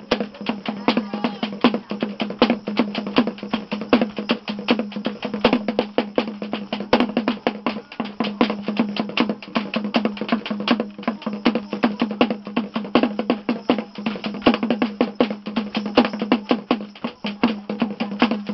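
Percussive music accompanying the T'boli madal dance: quick, even strikes, about five a second, over a steady low drone.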